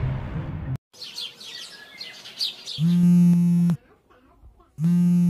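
Birds chirping, then an electronic phone tone that sounds twice, each about a second long with about a second between: a call ringing on the line.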